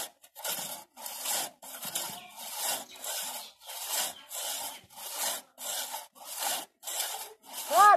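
Two-man crosscut saw pulled back and forth through a standing tree trunk near its base, one rasping stroke about every half second. A short, loud call with a wavering pitch cuts in at the very end.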